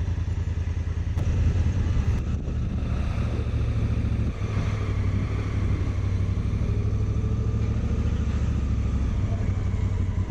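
Honda Africa Twin's parallel-twin engine running at low road speed, a steady, rapid low beat of firing pulses heard from on the bike, briefly louder about a second and a half in.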